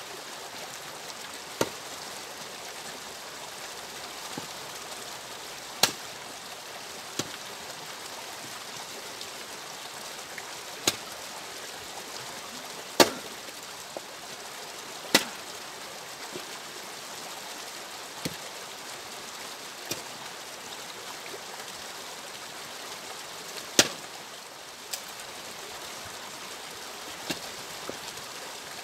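Axe splitting firewood: about ten sharp cracks of the blade striking and splitting logs, a few seconds apart at an uneven pace, over a steady rushing hiss.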